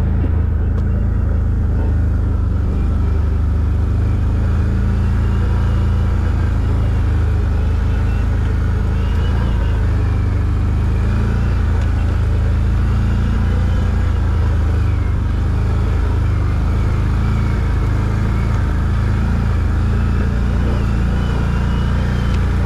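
ATV engine running steadily while riding, a deep, even rumble with no revving or stops.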